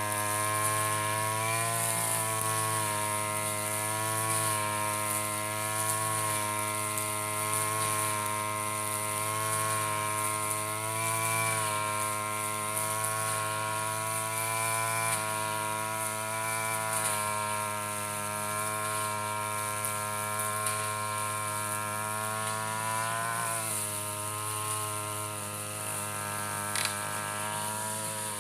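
Backpack brush cutter's small petrol engine running steadily while it cuts grass, its pitch wavering slightly now and then.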